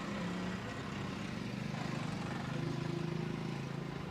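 Street traffic with a motor vehicle's engine running close by, a steady low hum that swells a little in the middle and eases off toward the end.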